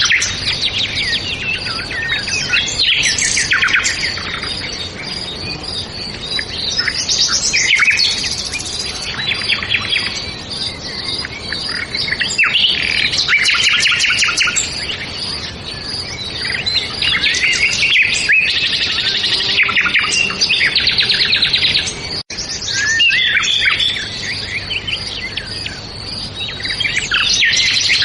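Songbirds singing and chirping in overlapping phrases and trills, over a steady faint background of outdoor ambience. The sound cuts out for an instant about 22 seconds in.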